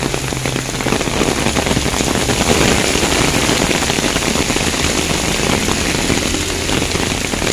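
Loud rain falling on an umbrella overhead and on the street, with cars driving past on the wet road.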